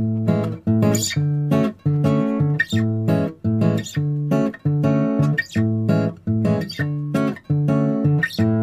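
Background music: an acoustic guitar strumming chords in a steady, choppy rhythm with short breaks between phrases.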